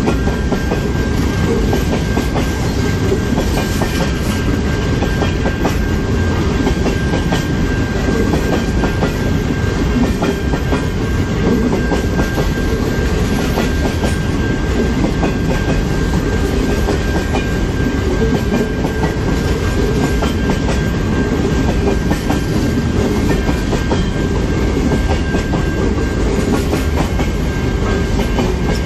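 Grain hopper wagons of a freight train rolling steadily past, their wheels clicking rapidly over rail joints above a constant low rumble. A thin, steady high whine sits over the rumble.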